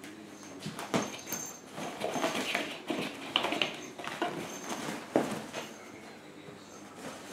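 A kitten scrambling and tumbling inside a fabric pop-up cat tent: rustling cloth with irregular knocks and scratches, the loudest about five seconds in, then settling.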